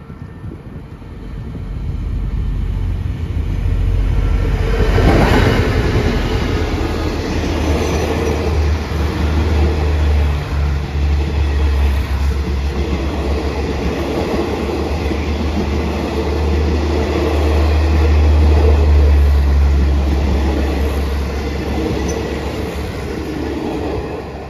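Passenger train passing close by behind a CRRC QSY diesel-electric locomotive, whose engine is very quiet. The train's approach builds over the first few seconds, with a brief sweep of sound about five seconds in as the front goes past. A long rake of coaches then runs by with a steady deep rumble of wheels on rail, loudest a few seconds before the end and then easing off.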